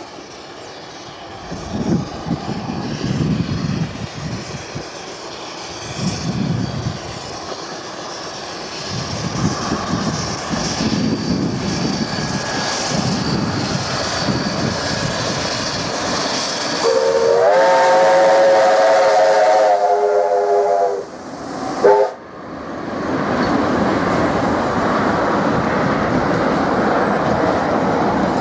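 NZR A class 4-6-2 Pacific steam locomotive A428 working a train, its exhaust chuffs growing louder as it approaches. About seventeen seconds in it sounds a several-toned steam whistle for about four seconds, then gives a short second toot. After that the carriages roll past with a steady clickety-clack of wheels on rail.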